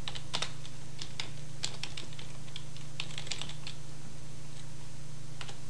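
Typing on a computer keyboard: irregular keystroke clicks, thinning out after the middle, over a steady low hum.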